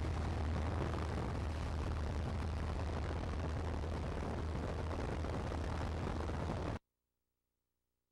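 Light-aircraft cabin noise from a Cessna 182: a steady drone of engine and propeller with wind rushing by. It cuts off suddenly near the end.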